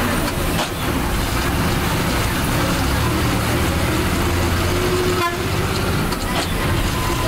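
Ashok Leyland diesel bus running on the road, heard from inside: a steady low engine drone with body rattles, and a horn held for a few seconds in the second half.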